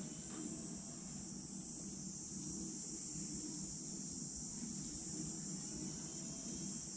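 Gotway MCM5 electric unicycle's hub motor spinning the wheel freely: pretty silent, with only a faint whine as it winds up.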